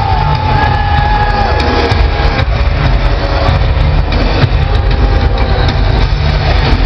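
Loud arena crowd cheering and yelling, a continuous wall of voices with a heavy low rumble. Several long drawn-out yells stand out above it during the first couple of seconds.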